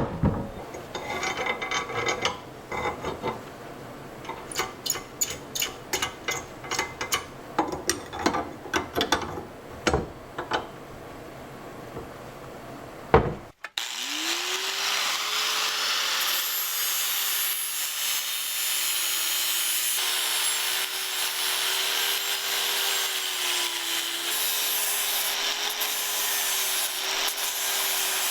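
Hand tool scraping or rasping at a part in repeated short strokes. Then, after an abrupt cut, a small power tool running steadily with a wavering whine that rises as it spins up.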